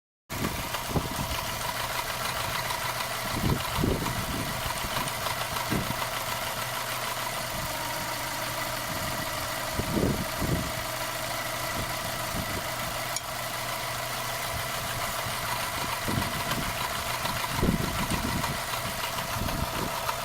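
Subaru flat-four boxer engine idling steadily, with a few dull low thumps along the way.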